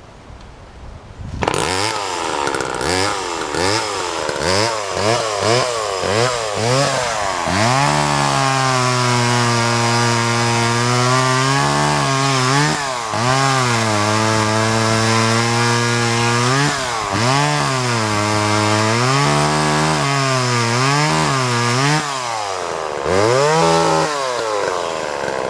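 Vintage Homelite XL two-stroke chainsaw running, coming in suddenly about a second and a half in. The throttle is blipped again and again so the engine note rises and falls, with several stretches held steady at high revs: a good-running saw.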